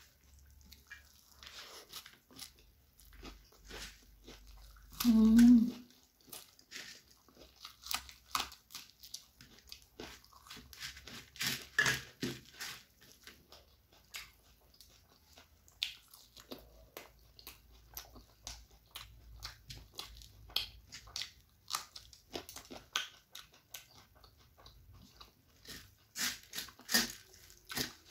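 Close-up eating sounds: crisp crunching and chewing of puffed rice mixed with chicken curry, heard as many small, irregular crunches and clicks. One short, loud voiced sound comes about five seconds in.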